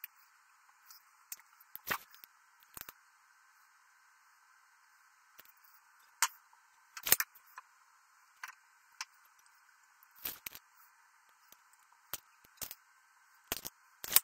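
Scattered short clicks and knocks from hand tools on a wooden workbench while wood is measured and marked with a tape measure and pencil, the loudest a sharp tap about seven seconds in and another at the very end.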